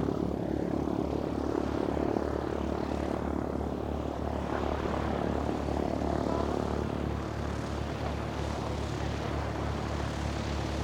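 Cessna 172R's four-cylinder engine and propeller running steadily at low power, a continuous even drone with a low pulsing beat.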